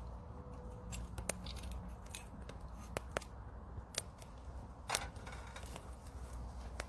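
Wood fire crackling, with sharp pops every second or so over a steady low rumble.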